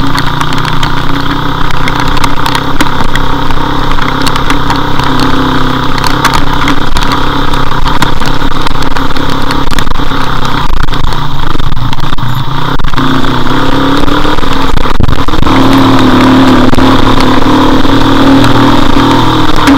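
Motorcycle engine running steadily while riding along a wet road in the rain, with wind rushing over the camera's microphone. The engine note grows louder about three-quarters of the way through.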